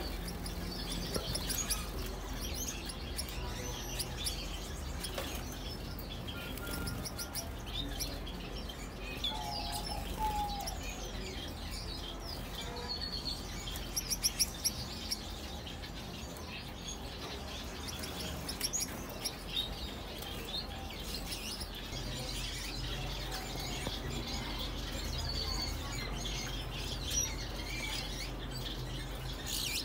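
Many small aviary birds chirping and twittering, with occasional wing flutters, over a low steady hum.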